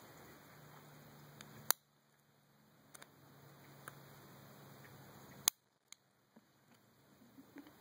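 Small metallic clicks and ticks of a lock pick and tension wrench working the pin stack of a Chateau padlock during single-pin picking. Two sharper clicks stand out, about two seconds in and about five and a half seconds in, with a few fainter ticks between them.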